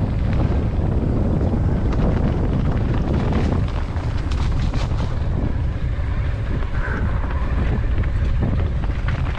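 Wind buffeting the microphone while moving, a steady low rumble with scattered sharp clicks and knocks.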